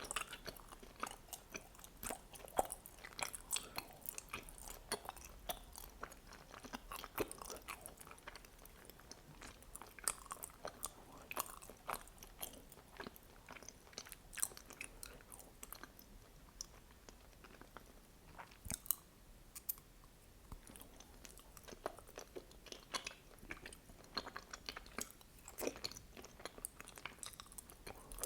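Close-miked chewing of mochi filled with red bean paste: an irregular run of small, wet mouth clicks, thinning out for a few seconds past the middle.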